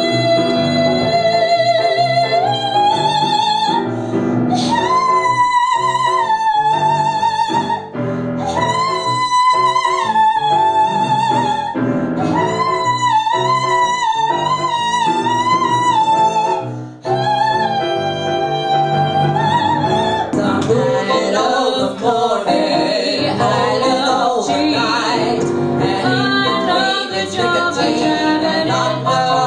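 A woman singing high notes with vibrato over piano accompaniment, in phrases with short breaks. About two-thirds of the way in it changes to three women singing together.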